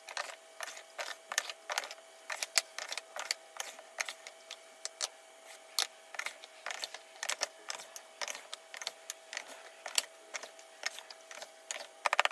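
Small wooden drawers being slid into the cubbies of a wooden apothecary cabinet, a rapid, irregular series of knocks and clacks, several a second, over a faint steady hum.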